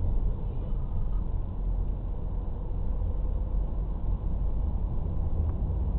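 A moving car's road and engine noise heard inside the cabin: a steady low rumble with a faint steady hum above it.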